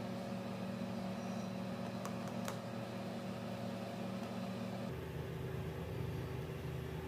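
Steady low background hum with a few steady tones in it; the hum changes character abruptly about five seconds in, and two faint clicks come around the two-second mark.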